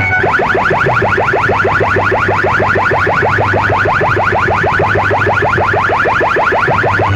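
Electronic siren effect played very loud through a tall stack of horn loudspeakers: a quick rising chirp repeated about seven times a second, stopping near the end.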